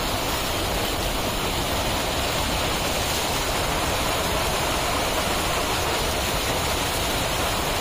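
Small waterfall pouring: a steady rush of falling water.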